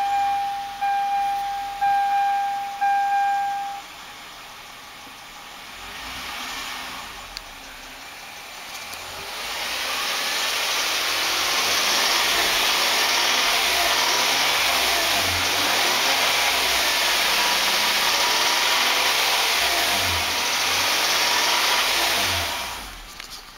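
Hyundai Santa Fe engine idling, then raised and held at a steady higher speed for about thirteen seconds before dropping back to idle near the end; the owner takes its tapping for a bad lifter at idle and, above 2,000 rpm, the beginning of a rod or main bearing knock. A beeping tone sounds about once a second during the first four seconds.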